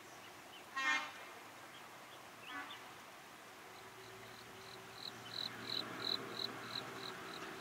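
Outdoor animal calls: a short, harsh call about a second in and a weaker one a moment later, then a run of high chirps, about three a second, swelling and fading over a few seconds. A faint low steady hum sits underneath from about four seconds in.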